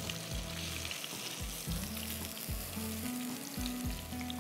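Chicken pieces sizzling in a hot pan, a fine crackling hiss with scattered pops, with low background music notes playing underneath.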